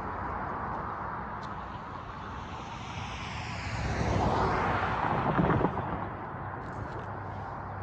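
Road traffic: car tyres and engines on asphalt, swelling as a vehicle passes close by about four to five seconds in, then easing back to a steady background hum.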